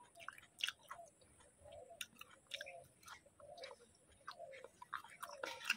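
Close-up mouth sounds of a person chewing a mouthful of rice and curry: soft, irregular wet smacks and lip clicks, several a second.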